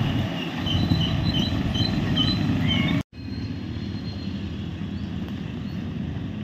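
Street traffic ambience: a steady low rumble of passing vehicles, with a run of short high chirps in the first three seconds. The sound cuts out abruptly about three seconds in and resumes quieter.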